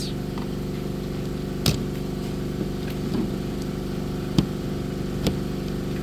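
A steady mechanical hum made of several low tones, with three light clicks as small flathead screwdrivers work against a seat belt buckle's plastic housing.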